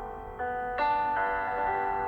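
Instrumental music: a slow melody of held, ringing keyboard-like notes, a new note coming in every half second or so.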